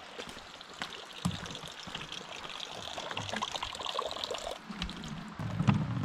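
Water pouring in a thin stream into a container, with a few light clicks.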